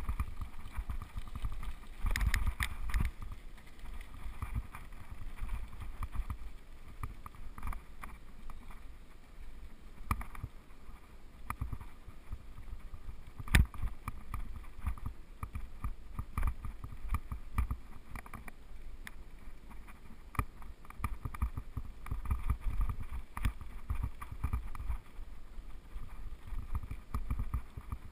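Mountain bike rolling over a rough gravel track, heard through its handlebar-mounted camera: a low rumble with irregular rattling and knocking over the bumps, and one sharp knock about halfway through.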